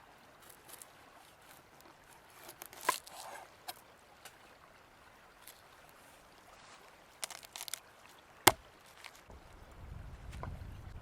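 Scattered knocks and clicks of a knife and ingredients being handled on a wooden cutting board while vegetables are prepared for chimichurri, not a steady chopping rhythm. The sharpest knock comes about eight and a half seconds in, and a low rumble rises near the end.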